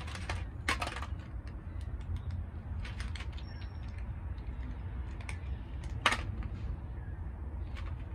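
Cats chewing dry kibble out of an aluminium foil pan: irregular crisp crunches and clicks, the loudest about six seconds in, over a steady low rumble.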